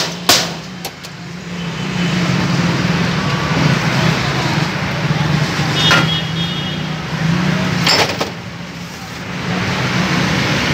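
Glass soda bottles clink with a few sharp knocks, near the start and again about six and eight seconds in, as soda is poured from them into plastic cups. Underneath runs a steady hum of road traffic.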